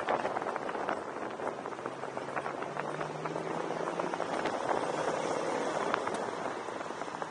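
Open-top convertible cruising at parade speed: wind rushing over the microphone with scattered small clicks, and a low steady engine hum that comes through faintly in the middle.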